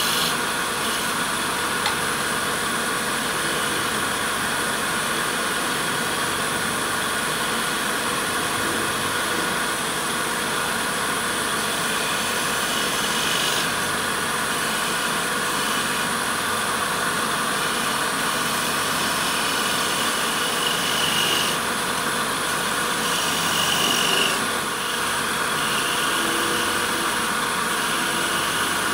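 Wood lathe running steadily, a constant motor hum and hiss, while a lathe knife takes light cuts on the spinning wooden spindle, with a few short, slightly louder cutting swells in the second half.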